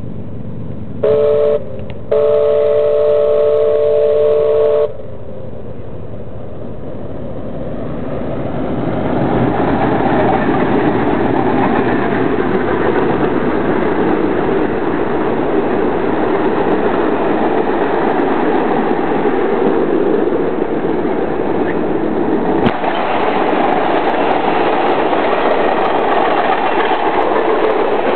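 Steam locomotive chime whistle blowing a short blast and then a long one in the first few seconds. Then the double-headed steam train, CP 2816 leading Milwaukee Road 261, approaches and its passenger cars roll past with a steady rumble of wheels on rail.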